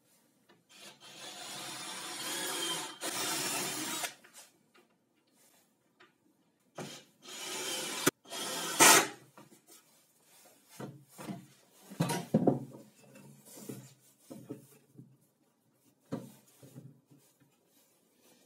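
Square pine legs and a laminated chipboard tabletop being slid and fitted together on a wooden workbench. Long wood-on-wood scraping runs for about three seconds, returns around eight seconds with a sharp click, then gives way to a run of light knocks and rubs.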